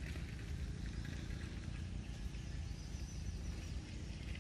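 Outdoor ambience: a steady low rumble under a light hiss, with scattered faint clicks and rustles and a faint high steady tone midway through.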